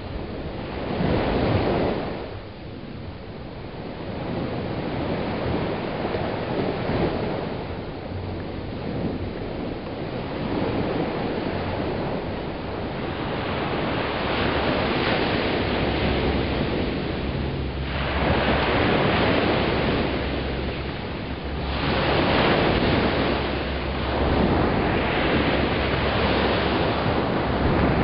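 Small waves breaking and washing up a sandy beach, in surges a few seconds apart that grow louder in the second half, with wind rumbling on the microphone.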